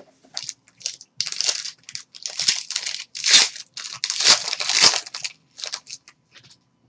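Shiny plastic wrapper of a trading-card pack being torn open and crumpled by hand: a run of loud crinkling and tearing bursts that dies down near the end.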